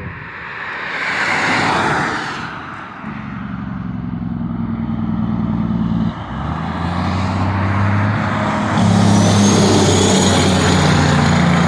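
Semi trucks passing on a highway: a rush of passing traffic, then a steady diesel engine drone building as a truck draws near, loudest in the last few seconds with a faint high whine on top.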